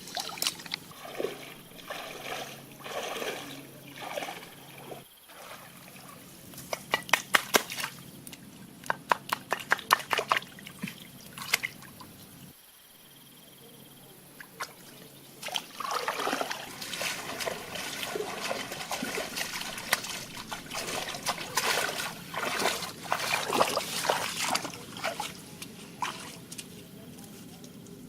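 Water sloshing, trickling and splashing in irregular bursts, with a run of sharp clicks or taps in the middle. It drops out briefly twice.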